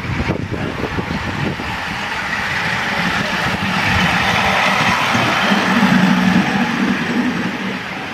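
Ride-on miniature railway train passing close by: its small locomotive running and its wheels rumbling on the track. The noise grows to a peak about six seconds in, with a steady hum near the loudest point, then eases as the train moves away.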